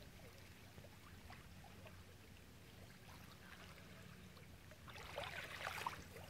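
Near silence: faint steady background hum and hiss, with a brief faint crackle or rustle about five seconds in.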